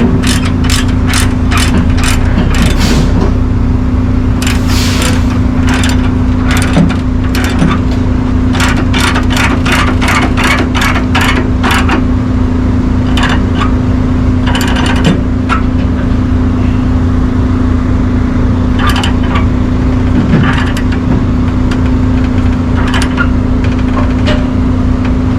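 Tie-down chains clinking and rattling in runs of sharp metallic clicks as a load is chained down, over an engine idling steadily.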